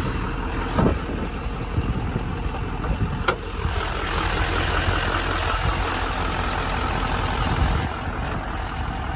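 Diesel pickup truck engine idling steadily, a little louder from about four seconds in once the hood is up. A single sharp click about three seconds in as the hood latch is released and the hood raised.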